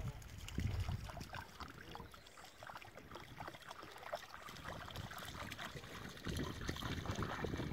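Light splashing of a small dog's paws wading through shallow river water, growing louder near the end.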